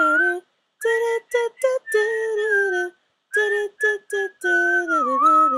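A woman singing a slow melody unaccompanied, in short phrases with brief pauses between them; the last phrase slides down in pitch near the end.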